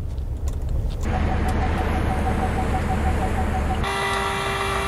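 Low steady road rumble inside a pickup truck's cab for about a second. Then, near the end, a steady pitched tone with overtones sets in and holds.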